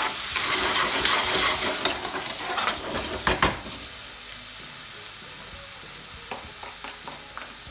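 Softened onions and tomato puree sizzling in oil in a pan while being stirred, with a few sharp knocks against the pan, two close together about three seconds in. The sizzle drops to a quieter hiss after about four seconds.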